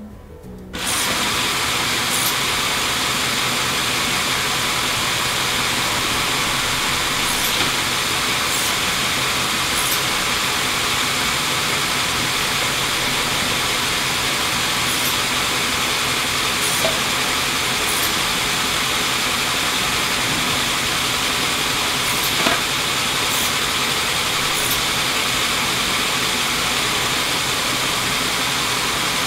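Motorized Lego container gantry crane running steadily as it travels and unloads containers, with a few faint clicks from its mechanism.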